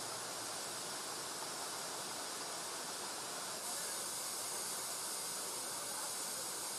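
Steady, even hiss with no distinct sounds in it, stepping up slightly in level about halfway through.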